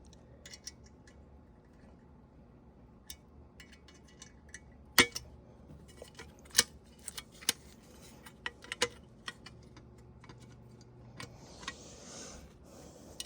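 Scattered light clicks and clinks of small exhaust-fan motor parts being handled and set down, the sharpest about five seconds in and again about a second and a half later. There is a brief soft rustle near the end.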